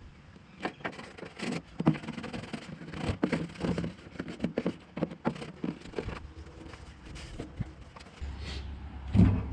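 Foil-faced sound deadening mat being pressed and moulded onto the vehicle's body panels, a run of irregular scraping and crackling handling noises, with one loud thump near the end.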